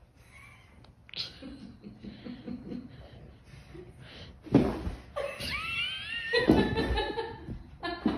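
A person laughing: soft, stifled chuckles at first, breaking into loud, high-pitched laughter about halfway through.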